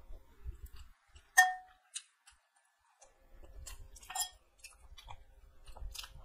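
A steel serving spoon clinks sharply against the dishes twice, each strike ringing briefly, between soft close-up chewing and mouth sounds.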